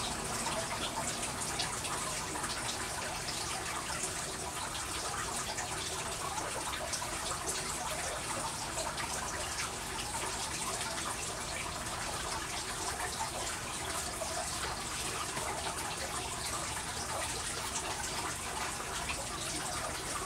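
Steady trickling water, with many small drips and splashes.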